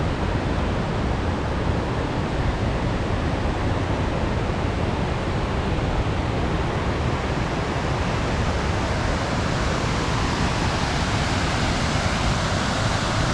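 Monsoon-swollen waterfall, heavy water pouring over rock in a steady, unbroken rush.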